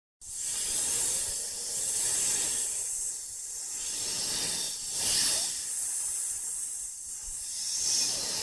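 Steady hissing noise that starts abruptly and then swells and eases every few seconds, with most of its energy in the high range.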